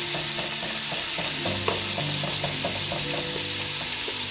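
Thinly sliced beef sizzling in very hot oil, with a utensil stirring the slices apart and clicking lightly against the pan a few times a second.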